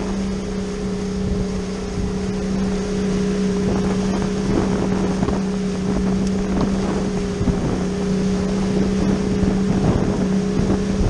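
Outboard motor running steadily under way, a constant low hum, with wind buffeting the microphone.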